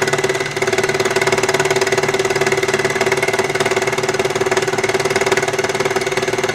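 Baby Lock Embellisher felting machine running steadily, its needles punching rapidly through layers of metallic fabric: a steady motor hum with a fast, even needle chatter, dipping briefly about half a second in.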